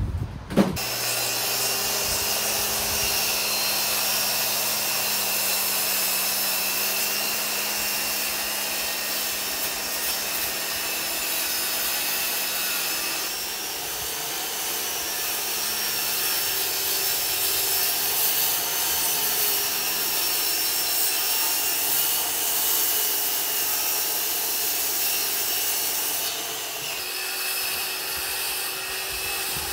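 Corded circular saw running steadily through a crosscut of the wooden 2x6 tabletop boards, the blade whining as it trims the uneven board ends flush to a pencil line. The cut goes on unbroken, easing off briefly about halfway and again near the end.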